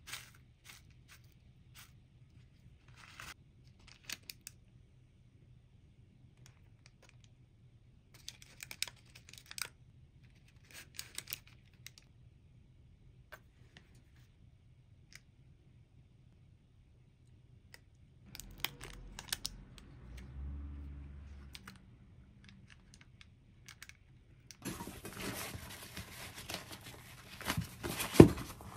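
Intermittent rustling, crinkling and tearing of packaging, with scattered light clicks and knocks. Near the end comes a louder, steady rushing noise with a few sharp knocks in it.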